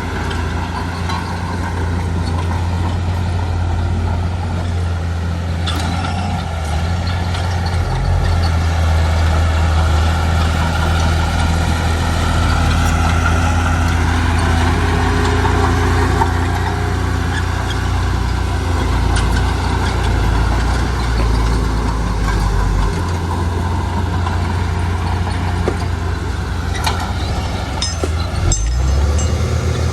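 Heavy diesel engine of earthmoving machinery running steadily, its pitch shifting a few times with load. A couple of knocks stand out, one about six seconds in and one near the end.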